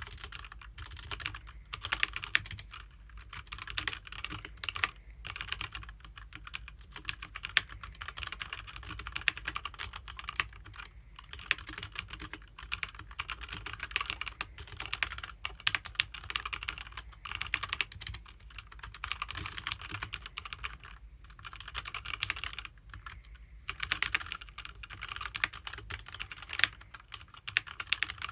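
Continuous fast typing on a HyperX Alloy Origins mechanical keyboard with HyperX Red linear switches: a dense, irregular stream of key clacks with a few short pauses.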